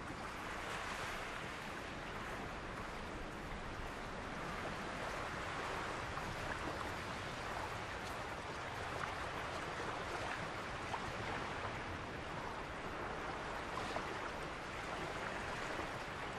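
Steady seaside ambience: gentle waves lapping at the shore under a light breeze.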